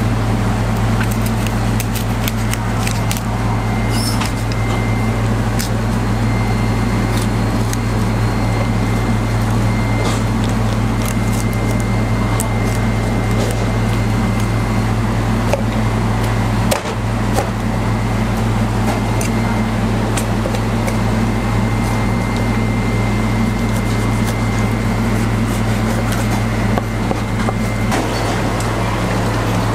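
Steady low machine hum, with scattered light clicks of a knife on a wooden cutting board and one dull knock about halfway through.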